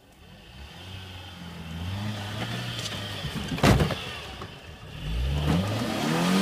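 First-generation Toyota RAV4's engine revving under load as it pulls through deep sand. The revs rise about a second in and again near the end. A single sharp knock comes a little past halfway.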